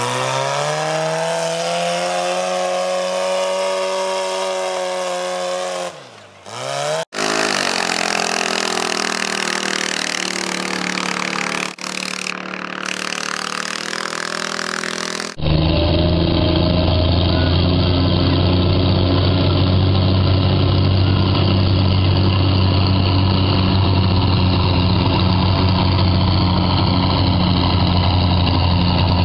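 Modified garden tractor engine running flat out while it pulls a weight-transfer sled, its high pitch sagging and recovering, with a brief drop about six seconds in. About fifteen seconds in it gives way to an Oliver farm tractor's engine running hard and steady, with a deeper, heavier sound, under the load of the pull.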